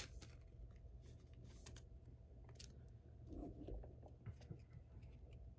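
Faint rustling and a few light clicks of trading cards being handled and slid into a plastic card sleeve, with a slightly longer rustle about halfway through.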